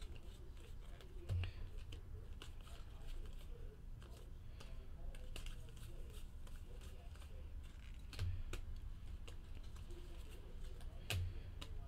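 Stack of baseball trading cards being flipped through by hand: faint, irregular clicks and slides of card on card, with a few soft thumps, over a low steady hum.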